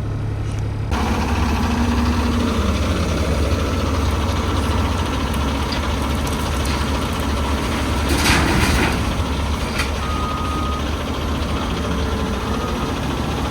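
Heavy diesel truck engine running steadily while dirt is loaded; the rumble gets lower and heavier about a second in. A loud rushing burst comes about eight seconds in, and a short beep near ten seconds.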